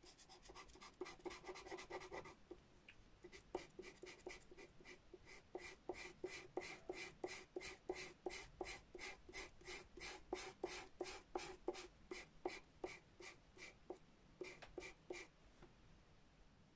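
Pastel pencil scratching on grey pastel paper in quick, short, repeated strokes, about three a second, as fur is hatched in. The strokes stop shortly before the end.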